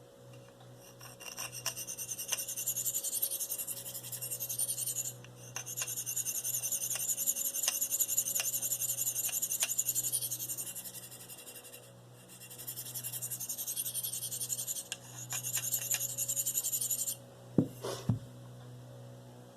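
Steel knife blade being stroked freehand across a Spyderco fine ceramic sharpening stone, giving a thin, high scraping hiss in three runs of strokes with short pauses between. Near the end there are two sharp knocks.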